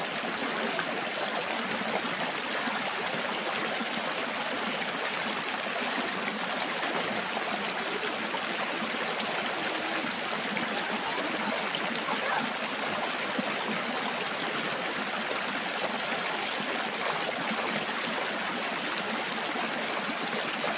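A shallow river rushing steadily over rocks.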